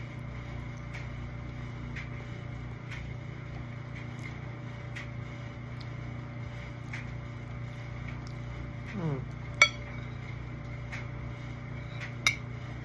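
Metal spoon clinking against a ceramic bowl while eating: a sharp clink about ten seconds in and a lighter one near the end, each time after a short hummed 'mm' or mouth sound. Underneath, a steady low electrical hum and faint ticks about once a second.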